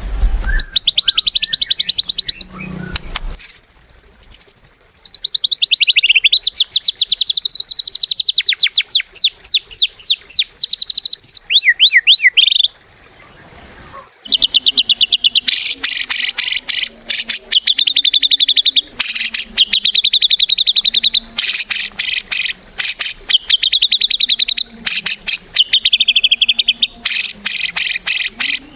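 White-rumped shama (murai batu) singing loudly in long runs of fast trills and rapidly repeated high notes, with a pause of about a second and a half near the middle.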